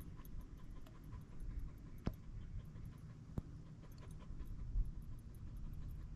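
Dog panting over a low rumble, with two sharp clicks a little over a second apart.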